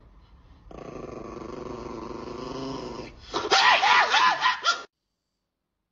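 A Chihuahua growls steadily for about two and a half seconds, then a louder burst of snarling and screaming follows as it lunges at the man's face. The sound cuts off abruptly about a second before the end.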